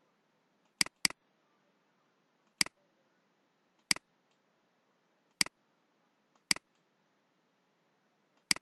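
Computer mouse button clicking seven times at irregular intervals of about one to two seconds, two of them in quick succession about a second in. Each is a sharp click followed at once by a fainter one.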